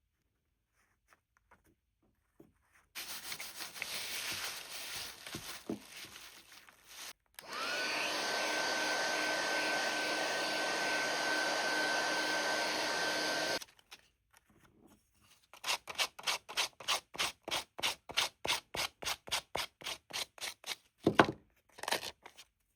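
Hair dryer blowing steadily for about six seconds, its motor whine rising as it starts and then holding, before it cuts off suddenly. It is preceded by irregular rubbing and followed by a quick run of even rubbing strokes, about three a second, ending with two knocks.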